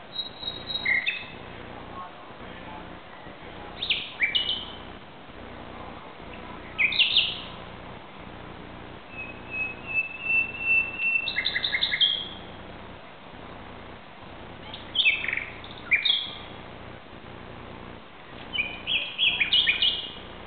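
Common nightingale singing: short, varied phrases of whistles, trills and rapid repeated notes, each a second or so long and separated by pauses of one to three seconds, over a steady low background noise.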